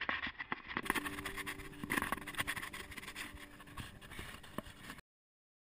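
Mountain bike rattling and clicking as it rolls over brick paving, picked up by a camera mounted on the bike. The sound cuts off abruptly near the end.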